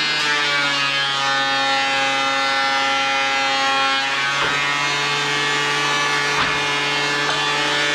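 Background music: sustained, held chords that shift to new pitches every second or few.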